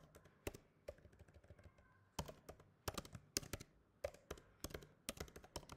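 Typing on a computer keyboard: irregular, faint keystroke clicks as a line of text is entered.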